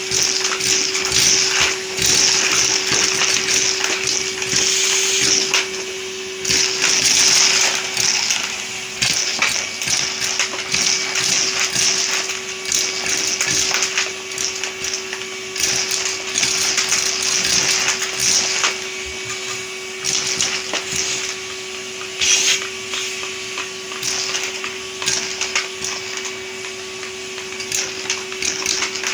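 Henry vacuum cleaner running with a steady motor hum while sucking up Lego bricks, which clatter and rattle as they are drawn in, in louder and quieter stretches.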